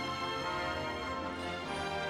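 Background music: gentle orchestral-style music with held notes.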